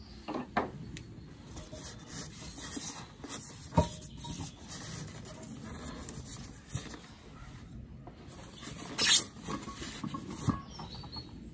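Polystyrene packing foam and cardboard rubbing and squeaking while a round perforated grate is worked out of a kamado's shipping box, with a knock about four seconds in and a loud scrape about nine seconds in.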